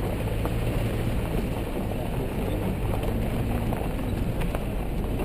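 Car driving on a gravel dirt road: the engine running at a steady low hum, with tyre noise over loose stones and scattered small clicks of gravel.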